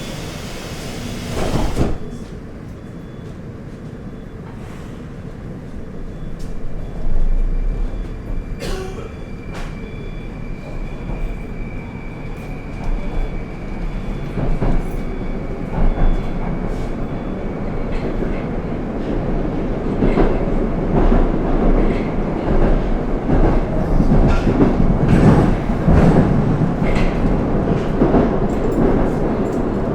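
Moscow metro 81-760/761 'Oka' train heard from inside the car. The doors close with a thud about two seconds in, then the train pulls away and gathers speed. Its running noise grows steadily louder, with knocks and clicks from the rails and a steady electric whine partway through.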